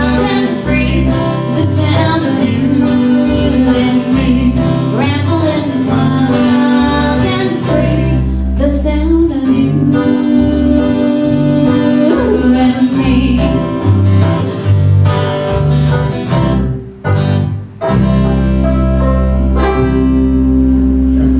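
Live acoustic trio playing, with plucked strings such as banjo and a bass line under a female lead voice singing. About 17 seconds in the music briefly drops out, then a long final chord is held.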